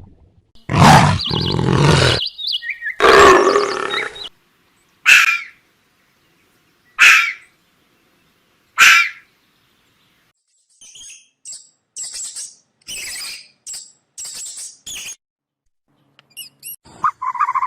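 A string of separate wild animal calls edited together with silences between. Two long, loud calls come in the first four seconds, then three short calls about two seconds apart, then a run of high, fainter chirps.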